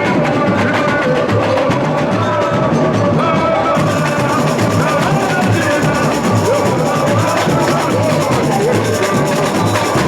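Samba school bateria playing samba: a dense, driving mass of drums and percussion over a steady low bass-drum pulse.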